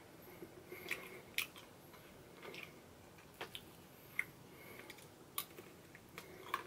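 Faint eating sounds: a metal spoon scooping ice cream cake and quiet chewing, with a handful of small sharp clicks scattered through.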